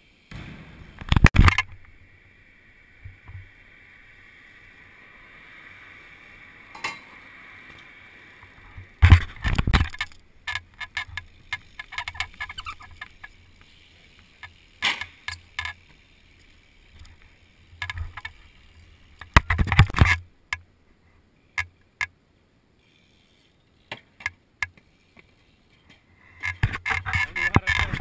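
Action-camera sound of BMX riding: bursts of loud knocks, rattles and clatter about a second in, around ten seconds, around twenty seconds and near the end, with quiet stretches between. The sounds come from a hand handling the camera and a BMX bike clattering on asphalt.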